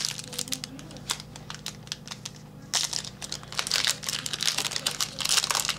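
Trading cards and a foil card-pack wrapper being handled: crinkling with many light clicks and snaps. The handling is densest about three seconds in and again near the end.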